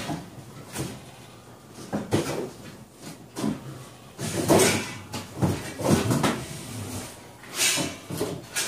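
Cardboard and packing material rustling and scraping in irregular bursts, with short knocks, as cooker parts are dug out of a shipping box.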